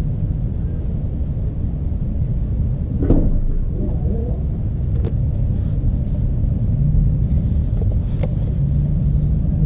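Steady low outdoor rumble, with a few light knocks of a plastic oil bottle being handled at a funnel. The loudest knock comes about three seconds in.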